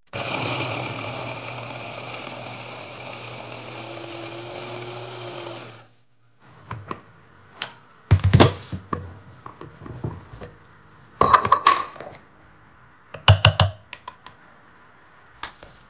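Electric mini food chopper running steadily for about six seconds as its blade chops oats, vegetables and coriander, then cutting off suddenly. After it a series of short plastic knocks and clunks follow as the motor head and lid are lifted off and the bowl is handled.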